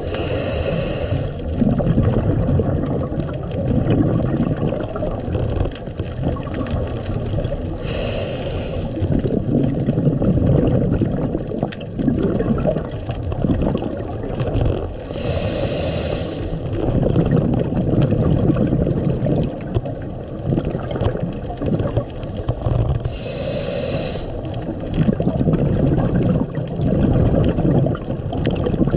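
Scuba diver breathing through a regulator under water: exhaled bubbles in four short bubbling bursts, one about every seven to eight seconds, over a steady low underwater rumble.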